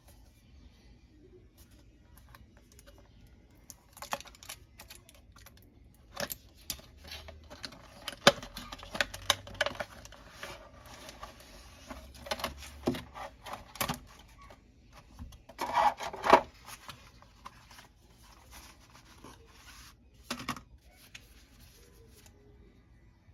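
Unboxing sounds from an earbud box: scattered clicks, taps and short rustles of cardboard and plastic packaging being handled, busiest in the middle with a louder rustling stretch about two-thirds through.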